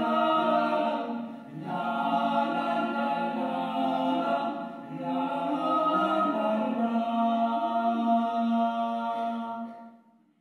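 Unaccompanied group singing: several voices hold chords in long phrases, with short breaks about a second and a half in and around five seconds, then fade out near the end.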